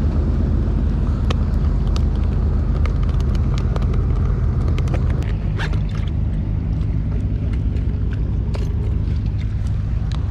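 A motor runs steadily with a low drone that eases slightly about halfway through. Scattered light clicks and knocks come from a plastic bait bucket and its rope being handled.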